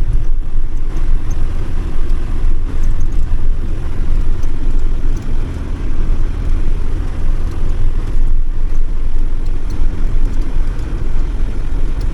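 Campervan being driven along a road: steady low engine and road rumble heard from inside the cab.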